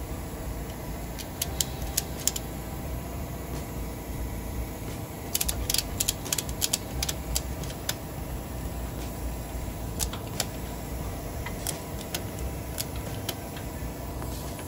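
Sharp metallic clicks in irregular clusters, densest around the middle, from a ratchet strap being worked and tightened around a small pocket-bike tire, over a steady low hum.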